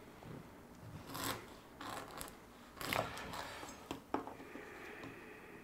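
Large kitchen knife sawing through a crusty bread roll on a wooden cutting board: a few separate rasping strokes through the crust, and two sharp taps about four seconds in.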